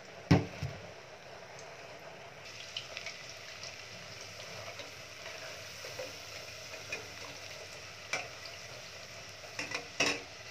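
Potato fries deep-frying in a steel pot of hot oil: a steady sizzle that grows brighter about two seconds in. A metal spoon stirs them and knocks sharply against the pot, loudest just after the start, once more later and in a quick cluster near the end.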